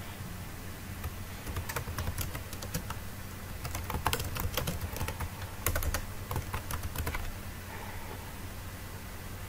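Typing on a computer keyboard: a run of quick keystrokes lasting about six seconds, then it stops, over a steady low hum.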